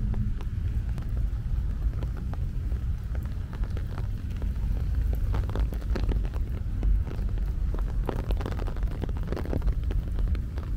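Monsoon rain falling, with many irregular drop taps close by, over a steady low rumble.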